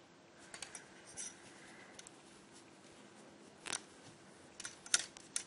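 Metal knitting needles clicking and scraping against each other and the wool yarn as stitches are knitted. The ticks come short and scattered, a few at a time, the loudest near the end.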